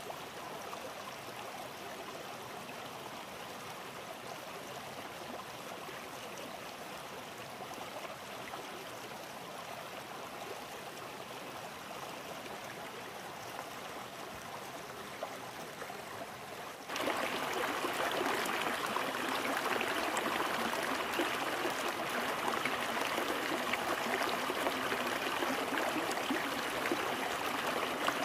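Stream water flowing with a steady rush. About two-thirds of the way through it cuts abruptly to a louder, closer rush of water.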